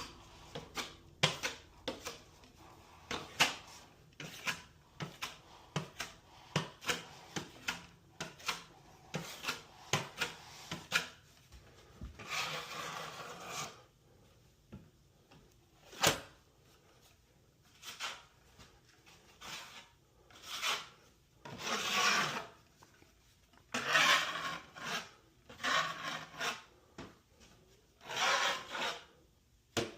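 Hand work on damaged drywall: a quick run of sharp taps and knocks, then several long rasping scrapes across the wall board.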